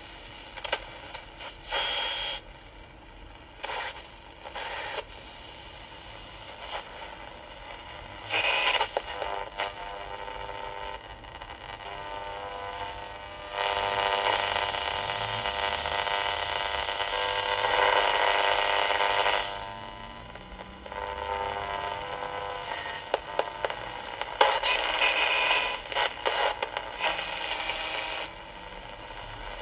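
Unitra Eltra Donald MOT-763 pocket radio on the medium-wave band giving out only static hiss and buzzing interference, with no station received. The interference swells in bursts, the longest lasting about six seconds in the middle.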